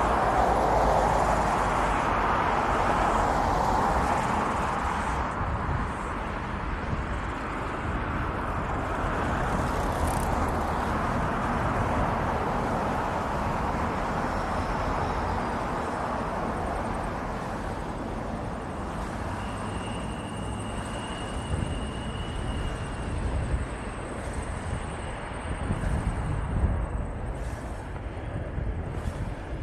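Steady rushing roll of inline skate wheels on a paved path, a little louder in the first few seconds, with a few sharp ticks near the end.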